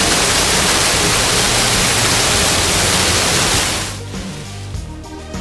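Man-made rock waterfall pouring into a pool: a loud, steady rush of falling water. About four seconds in the water sound cuts off and music begins.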